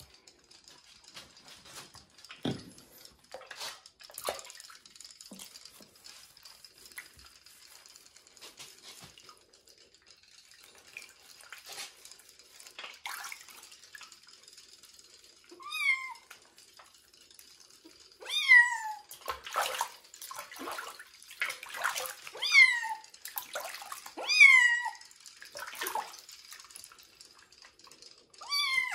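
Young kitten being bathed in a sink of water: water splashing and dripping as it is held and moved, then in the second half about five loud, short meows, each falling in pitch.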